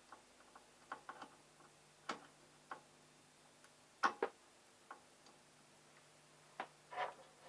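About ten light, irregular clicks and ticks from the open, powered CRT TV chassis and the wiring being handled on it, over a faint steady hum.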